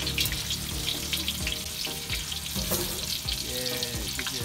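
Stinky tofu deep-frying in a large steel vat of oil: a dense, steady crackle of bubbling oil.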